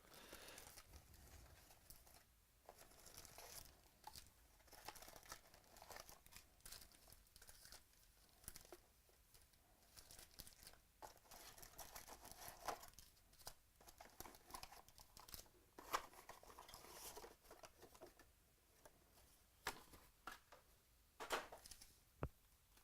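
Faint tearing and crinkling of trading-card pack wrappers being opened, with cards handled in irregular rustles and a few sharp clicks.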